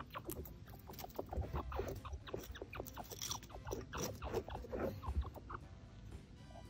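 Chinchilla making a rapid string of short, soft squeaks and chirps, several a second.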